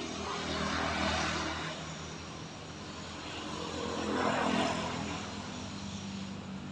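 Motor traffic passing out of view, with two vehicles swelling up and fading away, about a second in and again about four and a half seconds in, over a steady low engine hum.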